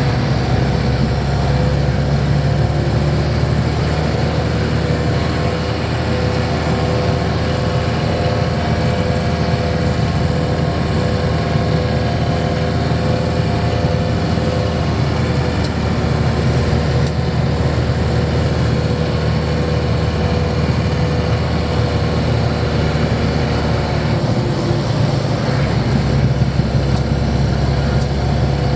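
Camper van engine with a freshly replaced timing belt running steadily on the road, heard from inside the cab as a continuous low drone. To its owners it sounds quiet and purry.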